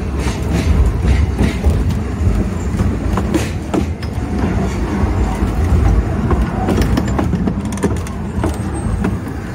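Narrow-gauge train running along the track, heard from on board: a steady low rumble with scattered clicks of the wheels over rail joints and points.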